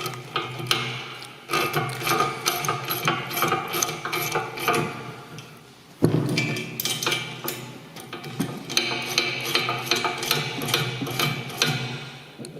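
Hand socket ratchet clicking rapidly as bolts are tightened, with metal clinks of the spanner holding the nut; the clicking dies away shortly before halfway and starts again sharply at the next bolt.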